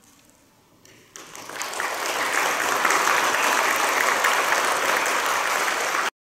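Audience applauding: the clapping starts about a second in, swells over the next second, holds steady, then cuts off suddenly near the end.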